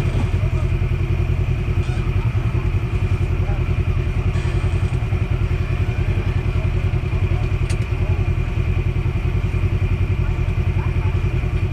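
Side-by-side off-road vehicle engine running steadily at low revs, with no revving.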